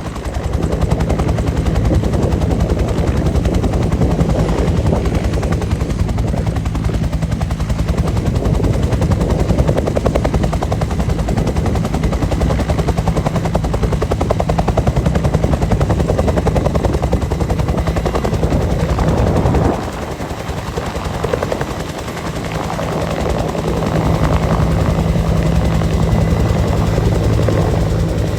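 Bell UH-1 Huey helicopter running in flight: rapid steady beating of the rotor blades over a low hum. The sound drops noticeably a little before two-thirds of the way through and builds back up a few seconds later.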